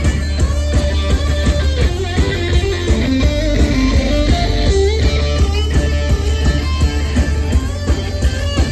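Live rock played loud through a club PA: an electric guitar picks a lead line of quickly changing notes over a steady drum beat, with no singing.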